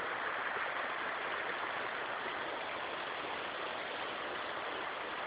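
Shallow rocky mountain stream running over stones: a steady rushing of water.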